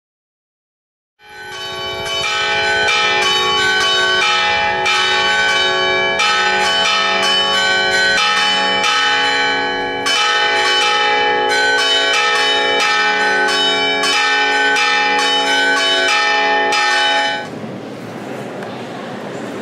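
Church bells pealing: several bells struck in quick, continuous succession, their tones overlapping into a dense ring. The ringing stops abruptly about two seconds before the end, leaving a steady background hiss.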